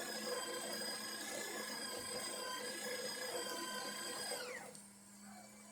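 Breville Oracle Touch espresso machine running with a steady motor whine, which falls in pitch and stops about four and a half seconds in.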